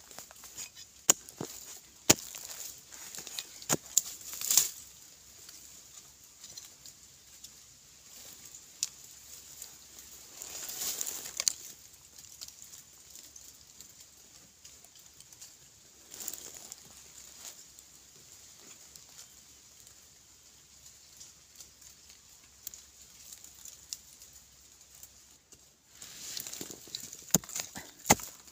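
Hand digging in dry, crumbly soil: scattered sharp knocks of a tool striking the earth and loose soil pattering down, with a short stretch of scraping about a third of the way in and more strikes near the end.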